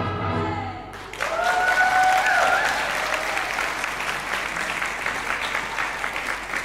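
A recorded folk-dance music track ends on its final notes. About a second in, the audience breaks into steady applause, with one long, high cheer from a single voice in the first couple of seconds.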